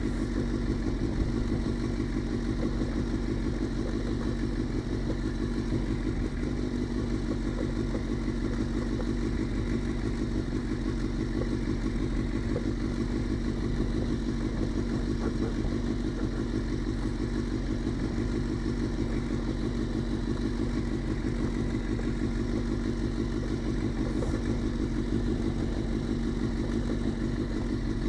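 Suzuki GSX-R600 inline-four engine running steadily at low revs, with no revving.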